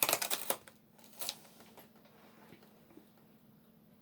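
Cardboard and small packaging handled while a calendar door is opened: a quick cluster of rustles and clicks at the start, one soft knock about a second in, then quiet.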